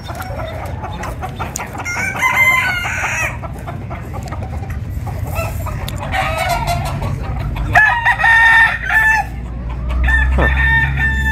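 Roosters crowing about four times, one call after another, among clucking chickens.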